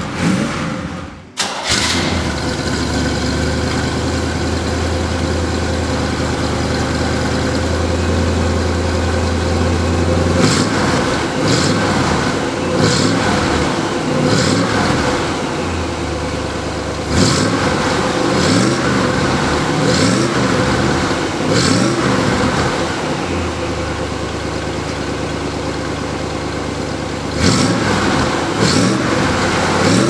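1968 Corvette's stock 327 cubic-inch, 300-horsepower small-block V8 idling steadily, then, from about ten seconds in, revved in a series of quick throttle blips, each climbing and falling back to idle, with a short lull in the middle before a last cluster of blips near the end.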